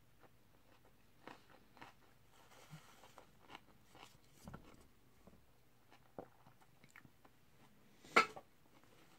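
Close-miked eating sounds: a person chewing and smacking her lips in short, scattered clicks, with one loud crunchy bite about 8 seconds in.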